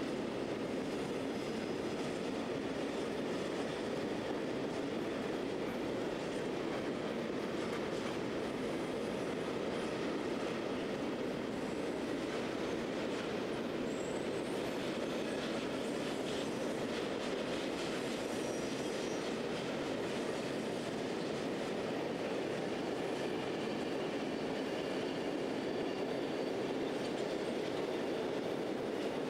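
Freight train wagons rolling past over the rails with a steady rumble. Faint, brief wheel squeals come through now and then.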